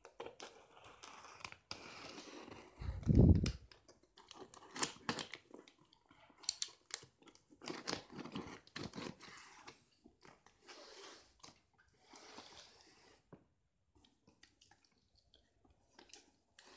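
Snap-off utility knife slitting the packing tape on a cardboard box, with the tape crackling and the blade scraping over the cardboard in short, irregular strokes. A heavy thump about three seconds in is the loudest sound.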